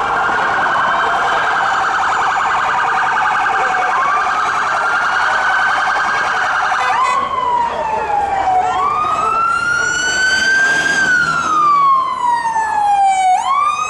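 Police vehicle sirens from two responding police vehicles, one a Mercedes-Benz Sprinter van. For the first several seconds a fast yelp sounds over a slower wail. About seven seconds in the yelp stops, and one siren carries on alone in a slow wail, rising and falling over a couple of seconds each way.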